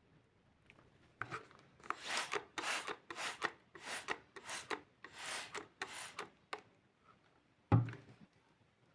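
About ten quick rubbing strokes of hand abrasion on a small part, roughly two a second, then a single sharp knock near the end.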